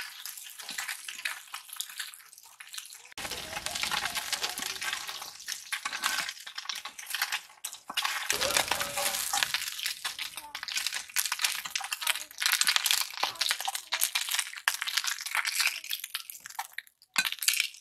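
Small fish sizzling and crackling as they fry in hot oil in an iron kadai, with a metal spatula stirring and scraping against the pan.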